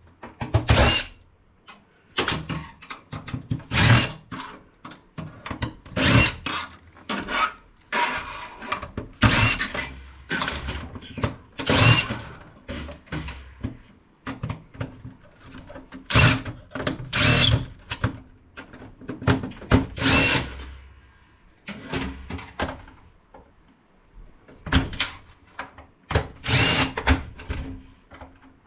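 Tools working on a computer case's plastic trim and steel side panel: irregular sharp knocks and clatters, roughly one every second or two, with a quieter stretch about two-thirds of the way in.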